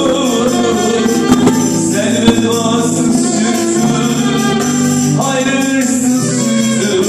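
Live band music: a male singer on a microphone over violin and keyboard with light percussion, playing steadily.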